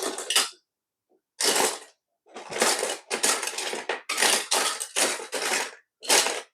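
Small plastic electronics-kit components clattering and clicking as they are handled and moved around the kit board, in several short bursts separated by brief silent gaps.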